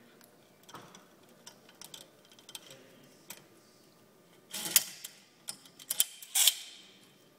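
Scattered light clicks and taps of handling at a workbench, with two louder brief rustling or scraping noises about four and a half and six and a half seconds in.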